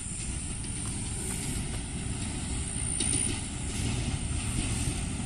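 Diesel train approaching along the track: a low rumble that grows a little louder about three seconds in.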